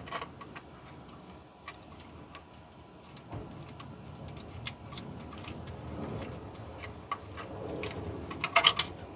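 Scattered metallic clicks and clinks of hand tools working on exhaust heat-shield clamp hardware, with a burst of sharper, louder clinks near the end.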